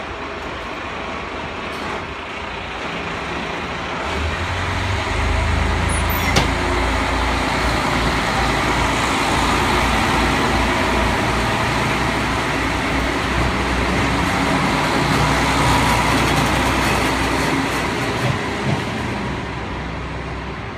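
Kashima Rinkai Railway 6000 series diesel railcar pulling away past the platform. Its diesel engine's low drone under load builds from about four seconds in, with running noise over it, and fades near the end as the car moves off. There is a single sharp click about six seconds in.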